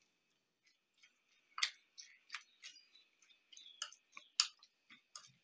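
Spoon mashing and stirring guacamole in a ceramic bowl: faint, irregular wet squelches and clicks, with a few louder taps of the spoon against the bowl.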